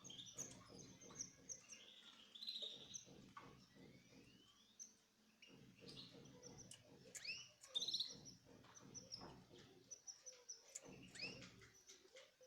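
Small kept birds chirping faintly, many short chirps repeating throughout over a low background rumble.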